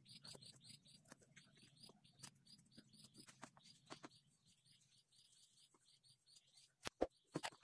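Faint chirping of a small bird, short high chirps about three or four a second, dying away about halfway through. A few sharp clicks come near the end.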